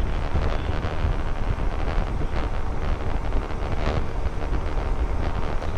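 Steady wind rush buffeting the microphone of a motorcycle riding at road speed, with a heavy low rumble from the bike and its tyres underneath.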